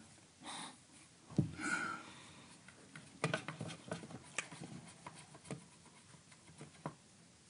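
Faint scattered clicks and taps of small objects being handled, with light rustling, in a small quiet room.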